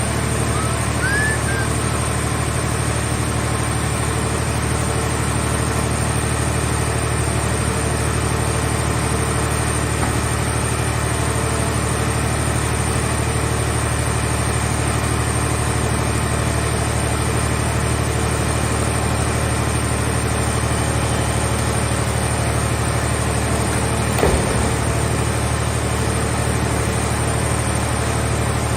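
Heavy engine of a scrap-car baling machine running steadily with a low, even hum, with a single knock near the end.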